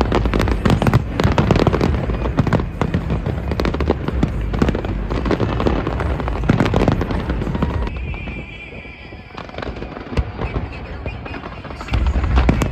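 Fireworks display: rapid, overlapping bangs and crackles of bursting shells. The barrage thins out for a few seconds about two-thirds of the way through, then comes back loud near the end.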